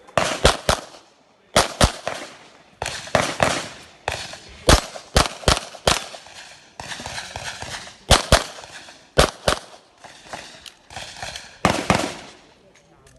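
Taurus TS9 9 mm pistol fired in quick succession through an IPSC course of fire, shots often coming in close pairs with brief pauses between strings; each shot is sharp and echoing.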